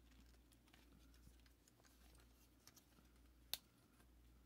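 Near silence with a few faint clicks of a plastic Transformers Earthrise Skywarp figure's parts being worked by hand, one sharper click about three and a half seconds in, as a tight arm joint is forced out.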